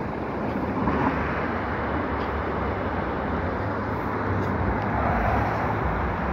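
Street traffic: cars driving past on the road, over a steady low engine hum. The sound swells about a second in and again near the end.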